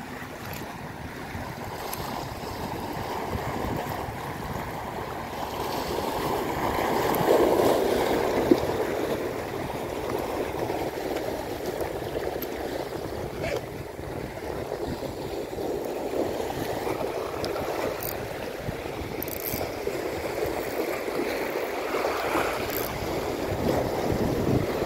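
Sea waves surging and washing over a rock reef, the loudest surge about seven seconds in, with one sharp click soon after.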